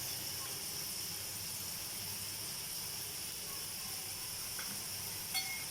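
Frying masala of onions and ground spices, with a little water just added, sizzling steadily in the pan to keep the spices from burning. A faint click comes near the end.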